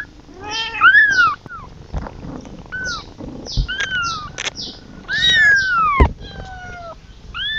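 Young kitten meowing over and over in high-pitched cries, the longest about five seconds in falling in pitch: a kitten calling for its mother.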